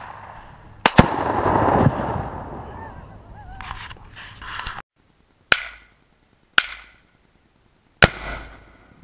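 Gunshots at a tannerite target: a sharp crack about a second in followed by a long rolling boom that echoes away over about two seconds as the tannerite detonates, then three more short sharp cracks about a second apart, the last with a low rumble.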